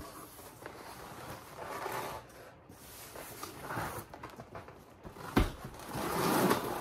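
Cardboard box flaps and packaging being handled: rustling and scraping of cardboard, with one sharp thump about five and a half seconds in.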